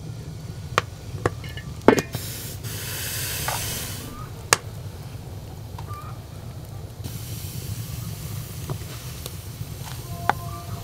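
Kitchen sounds: a hiss about two seconds in lasting about two seconds, and another from about seven seconds on, with a few sharp knocks over a steady low hum.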